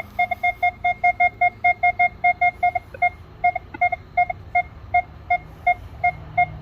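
Metal detector beeping in rapid short pips of one steady pitch, about five a second, slowing to about three a second after some three seconds. It is sounding on a non-ferrous target lying among iron pieces that are discriminated out, and keeps its signal.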